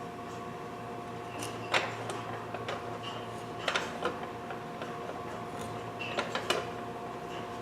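Lion miter trimmer's guillotine blade shearing thin wood molding: a handful of sharp snaps and clicks about a second or two apart, over a steady electrical hum.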